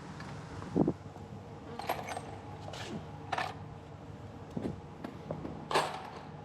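A few light, sharp metallic clicks and clinks, with a couple of dull knocks, over a steady low hum.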